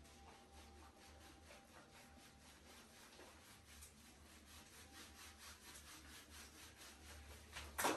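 Hands scrubbing shampoo lather into a wet dog's fur: faint, rhythmic rubbing strokes, about three a second, with a sudden louder sound near the end.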